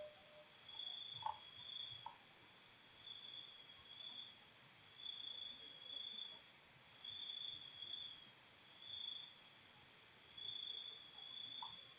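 Crickets chirping faintly in the background, evenly spaced high chirps about once a second over a steady high hiss, with a few short faint clicks.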